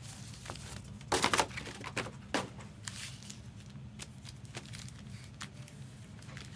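Foil trading-card packs crinkling and rustling as they are handled and stacked by hand, with a louder crinkle a little after a second in and another near two and a half seconds.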